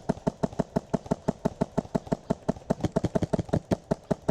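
Airsoft gun, likely an HPA rifle, firing a fast, unbroken string of shots, each a sharp pop, about eight a second.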